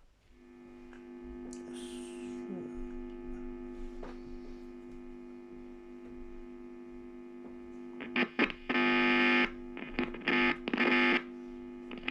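Electric guitar amplifier hum and buzz from a Gibson Les Paul Custom with faulty wiring under test. Several loud bursts of harsher buzz come about eight to eleven seconds in, the sign of a bad connection in the controls as they are probed.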